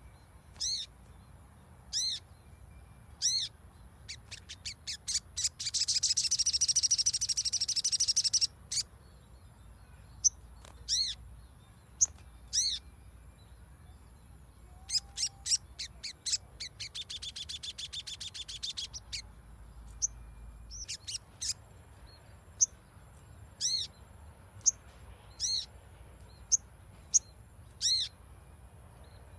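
Sogon (a sunbird) calling: sharp, high chip notes repeated at uneven intervals, broken twice by a fast rattling trill, about five seconds in and again about seventeen seconds in.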